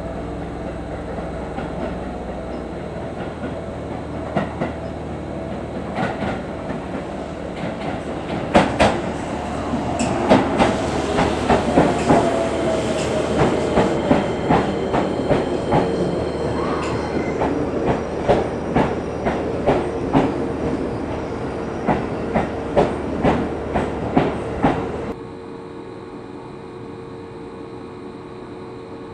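Seibu 3000 series electric train pulling into a station, its wheels clicking over rail joints over a running rumble, with a falling whine as it slows. The clicking and rumble stop abruptly about 25 seconds in, leaving a steady hum.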